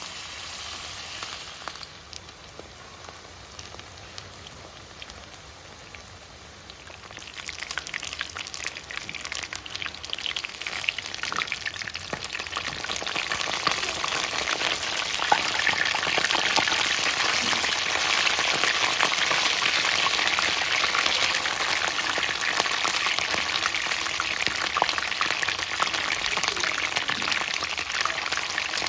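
Batter-coated chicken pieces deep-frying in hot oil in a kadai, a steady sizzling crackle that grows much louder about seven seconds in and stays loud.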